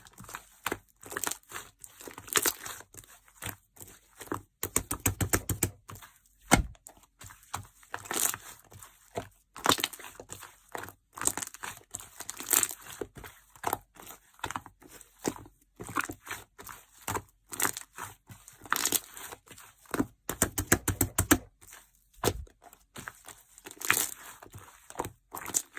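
Sherbet slime being squeezed and pressed by hand, giving dense crackling and popping clicks, with two runs of rapid popping about five and twenty-one seconds in.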